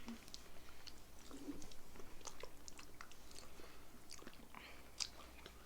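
Someone chewing a mouthful of chocolate from a giant Hershey's Kiss: faint, irregular small clicks and wet mouth sounds close to the microphone.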